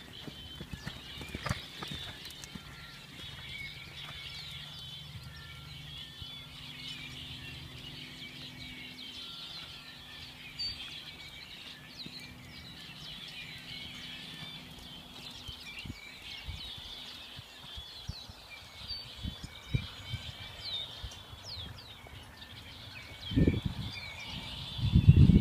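Small birds chirping throughout, over the soft, muffled thuds of a horse's hooves cantering on arena sand. Near the end come two loud low rumbles.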